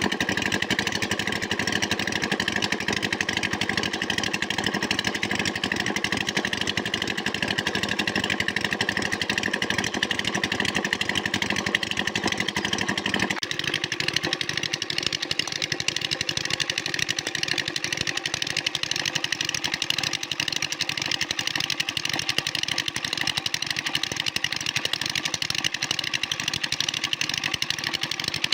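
A small engine running steadily, its sound changing abruptly about halfway through.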